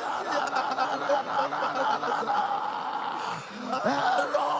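A congregation praying aloud all at once, many overlapping voices blending into a dense murmur with no single speaker standing out.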